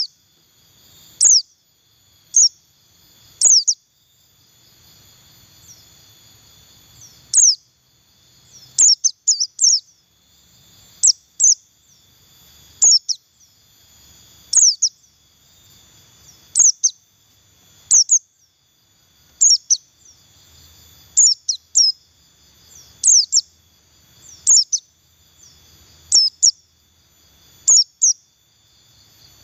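Pleci buxtoni white-eye giving short, high, down-slurred chirps in ones, twos and threes, roughly every second or two, rather than a full song.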